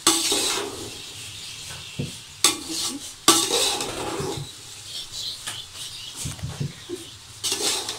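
A metal spoon scraping and clanking against the sides of a large metal pot as fried rice is stirred and tossed, in irregular strokes, the loudest at the very start and about three seconds in.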